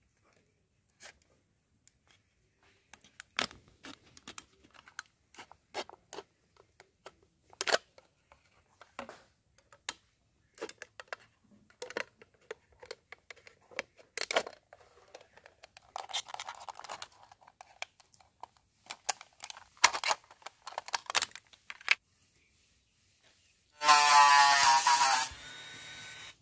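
A utility knife scoring and cutting through a thin plastic water bottle: irregular sharp clicks, crackles and short scrapes as the blade pierces and saws the plastic. Near the end a loud buzzing sound lasts about a second and a half, then drops to a quieter steady hum.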